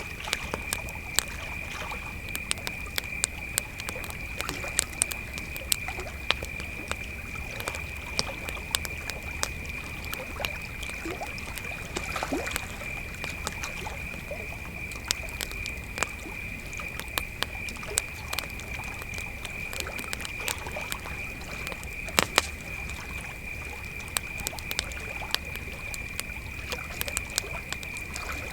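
Campfire crackling with irregular sharp pops, a louder double pop about two-thirds of the way through, over a steady high chorus of crickets.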